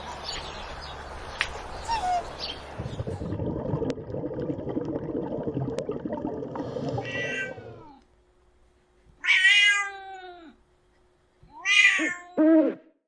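Domestic cat meowing: one long meow, then two quick meows close together near the end, after several seconds of other background noise.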